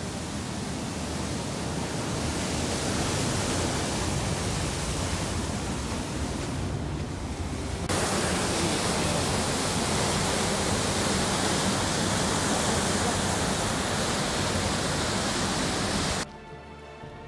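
Water from a reservoir outlet rushing over concrete and pouring down a narrow rock channel, a steady rush of falling water that gets louder about eight seconds in. Music takes over abruptly near the end.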